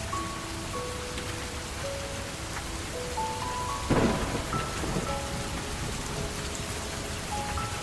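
Steady recorded rain falling on surfaces, with a single sharp thunderclap about four seconds in that briefly rumbles on. Sparse, slow piano notes sound over the rain.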